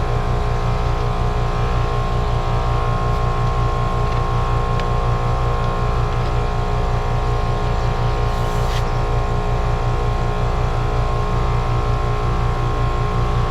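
Two-stage Trane heat pump outdoor unit running, a steady hum of compressor and fan with a low drone and a stack of steady tones. Its gauges read the same pressure on both sides, and the technician takes the system to have lost most of its refrigerant charge.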